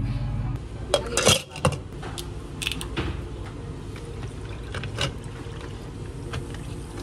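A bottled drink poured over ice cubes in a tall cup, with the ice clinking and rattling in several sharp clicks, the loudest about a second in. Background music cuts off about half a second in.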